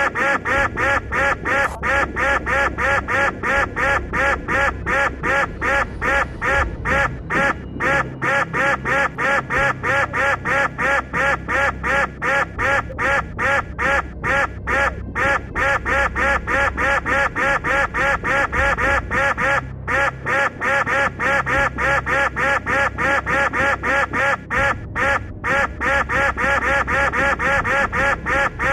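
A short, nasal, honk-like sound effect repeated evenly and rapidly, a little over three times a second, without a break.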